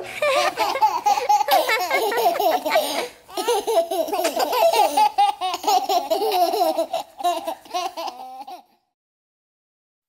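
Young children laughing together in a long burst of giggles, with a short break about three seconds in. The laughter cuts off suddenly near the end.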